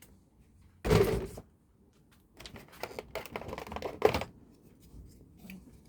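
Small clicks and rattles of objects being handled, with a louder knock about a second in and a sharper click about four seconds in.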